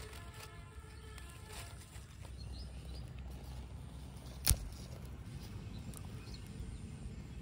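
Outdoor ambience with a low steady rumble and a few faint high chirps, broken by one sharp click about halfway through; the tail of background music fades out in the first second or so.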